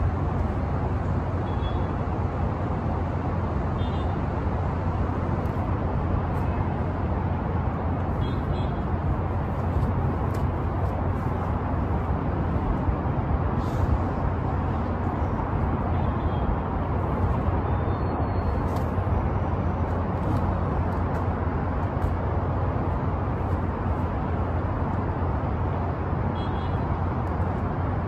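Steady low outdoor rumble with a few faint, short high chirps now and then.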